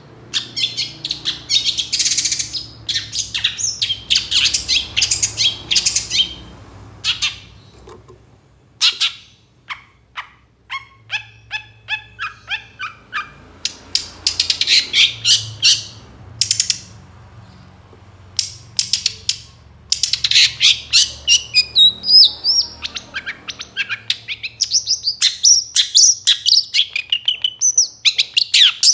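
Long-tailed shrike singing: harsh, scratchy chattering phrases in bursts, a run of short repeated notes about four a second in the middle, then a dense stretch of rapid varied notes with gliding pitch near the end.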